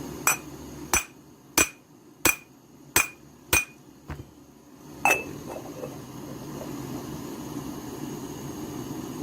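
Hammer knocking on the heated metal rim of a coffee-machine boiler, about seven sharp ringing blows in quick succession and one more a second later, working the warped flange flat to close the gaps in its sealing face. A steady faint hiss follows.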